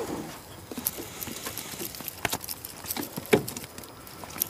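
Handling noise in a small aluminium fishing boat: irregular light taps and knocks, with the rustle of a work glove being pulled on.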